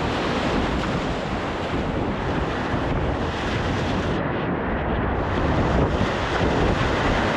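Whitewater rapids rushing loudly around a kayak, with wind buffeting the microphone.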